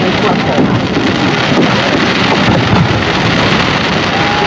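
Aerial fireworks display: a dense, unbroken run of crackling and popping shell bursts with many sharp cracks and low booms.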